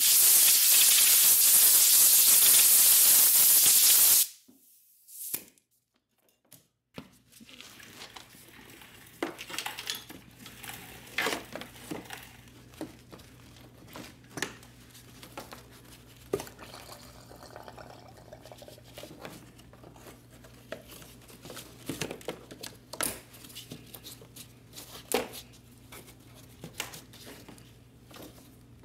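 A pressurized spray nozzle hissing loudly and steadily for about four seconds, then cutting off. After a short silence, light clicks and plastic handling noises come and go over a low steady hum as fuel lines and connectors are fitted to the fuel pump module on top of a plastic fuel tank.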